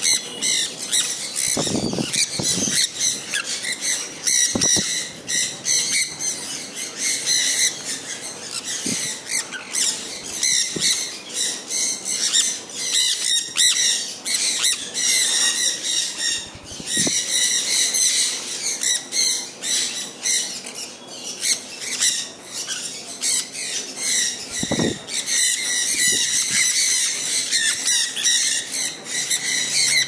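A flock of sun conures squawking continuously, many shrill calls overlapping, with a few dull knocks.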